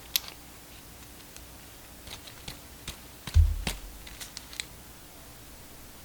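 Scattered sharp clicks and light knocks of hard objects being handled, with one heavier low thump about three and a half seconds in.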